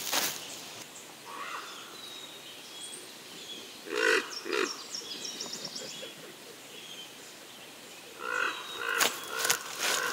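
Footsteps crunching through dry leaf litter and twigs on a forest floor, stopping for a few seconds in the middle and starting again near the end. Faint high bird chirps are heard in the lull.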